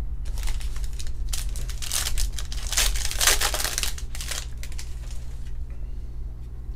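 Foil trading-card pack wrapper being torn open and crinkled by hand, a run of crackling rustles that is loudest in the middle and then dies down to quieter handling of the cards.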